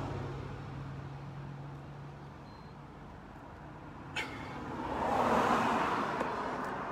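Road traffic passing: a vehicle's engine hum and tyre noise die away, then another vehicle swells past about five seconds in and fades. A short click just after four seconds.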